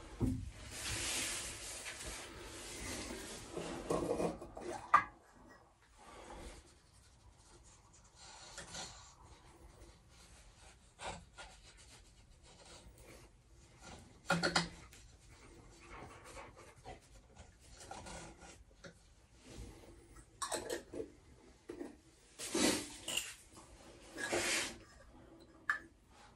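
Rubbing and scraping, steady for the first five seconds, then scattered short scrapes and knocks, heaviest in two bursts near the end.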